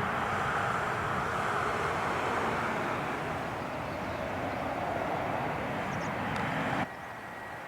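Bombardier Challenger 350 business jet's turbofans heard in a close pass, a loud jet rush whose whine falls in pitch. It cuts off suddenly near the end to a quieter hiss with a faint steady high tone.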